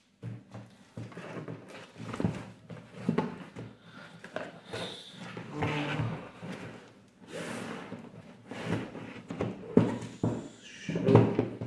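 Cardboard shipping box being opened by hand: its flaps pulled back, with cardboard scraping and rustling and irregular knocks. It ends with louder thumps as a shoe box is lifted out and set down.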